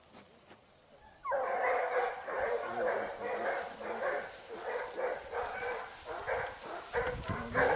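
A pack of hare hounds giving tongue together, many voices baying over one another. The cry breaks out suddenly a little over a second in and carries on: the hounds have found the hare's scent.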